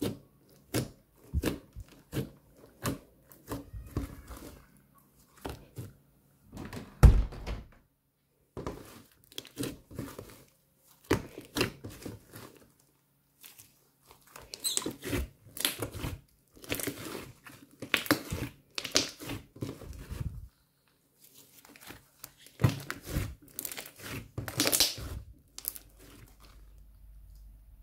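Hands kneading and squeezing a large lump of glossy slime with water beads mixed in, making irregular wet squelches, crackles and pops of trapped air. One loud thud about seven seconds in, with short pauses near eight and thirteen seconds.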